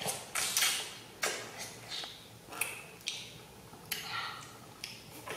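A child's close-up eating sounds: biting and chewing a juicy green orange segment, a quick run of short, sharp wet smacks and clicks, about two a second.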